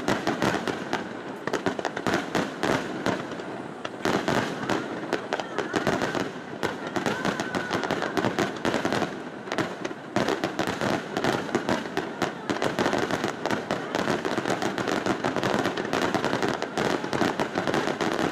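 Aerial firework shells bursting in a rapid, continuous barrage: dense overlapping bangs and crackling with no pauses.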